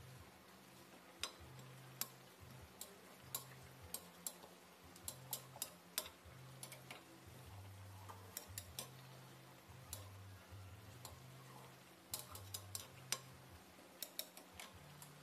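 Coconut-milk stew simmering in a metal pan, with faint, irregular popping clicks from bursting bubbles, some in quick clusters, over a low hum.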